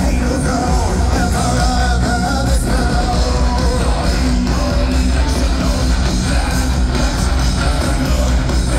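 Heavy metal band playing live at full volume through a large concert PA, with singing over the band, heard from within the audience.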